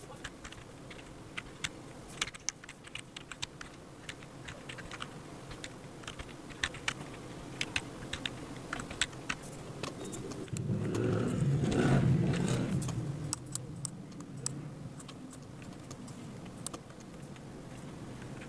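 Computer keyboard typing in irregular clicks. A little past the middle, a louder low rumble swells and fades over a few seconds.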